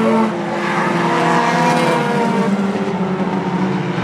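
Several four-cylinder short-track race cars running at speed around the track, their engines sounding together with the pitch shifting slightly.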